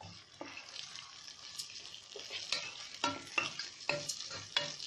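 Washed rice grains frying in oil in a pot, sizzling, while a wooden spoon stirs them, with repeated scrapes and knocks of the spoon against the pot that grow more frequent in the second half. This is the rice being toasted in oil before the water goes in.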